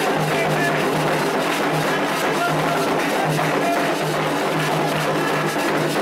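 Candomblé ritual music: atabaque drums and percussion playing a steady, driving rhythm for the orixás' dance.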